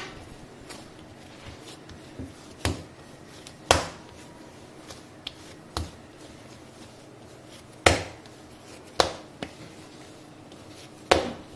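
Sharp knocks and taps of kitchen handling, about six of them spaced a second or two apart, over quiet room noise. They come as puri dough is taken out and portioned.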